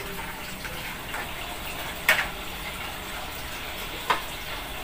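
Steady hiss of a gas stove burner and simmering pots, with two sharp metal clinks of cookware about two seconds apart, the second as a hand takes hold of the aluminium pot's lid.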